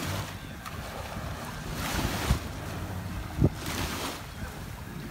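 Small waves lapping and washing onto a sandy shore in shallow bay water, with wind blowing on the microphone. Two brief low thumps stand out, about two and three and a half seconds in.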